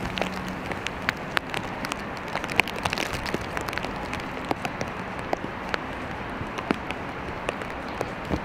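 Steady rain: a constant hiss with many irregular sharp taps of drops landing close by.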